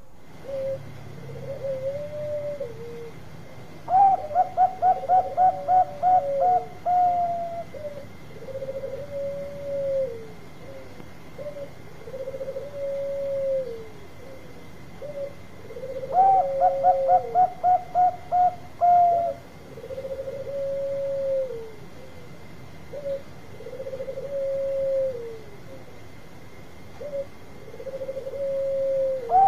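Zebra dove (Bangkok perkutut) cooing. Twice it gives its loud staccato song, a quick run of about ten notes ending on a longer one, about 4 seconds in and again about 16 seconds in. Softer drawn-out coos repeat every couple of seconds in between.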